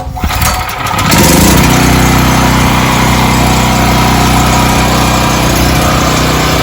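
Harbor Freight Predator 4375 portable generator's engine starting: about a second of cranking, then it catches, revs up briefly and settles into a loud, steady run.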